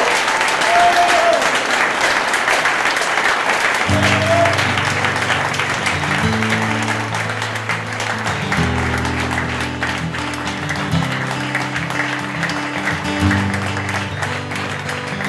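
A crowd clapping and cheering. About four seconds in, music with low, sustained bass and guitar notes comes in under the applause.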